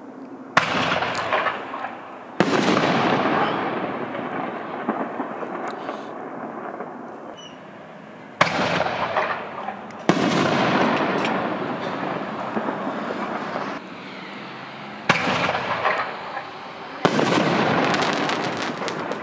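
Consumer 5-inch reloadable canister firework shells being fired: three shells, each a sharp launch thump followed about two seconds later by a louder burst. After each burst come crackle and an echo dying away over several seconds.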